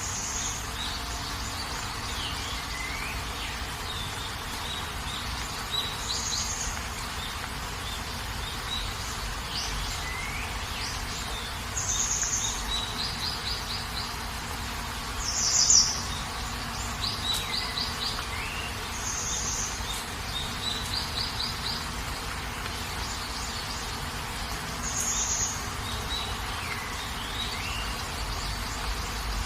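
Steady rain hiss with wild birds calling over it: short high chirps repeated every few seconds, quick trilled runs of notes and a few downward-sliding whistles, the loudest chirp about halfway through.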